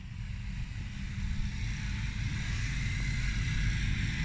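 A steady vehicle rumble growing gradually louder, as of a motor vehicle approaching.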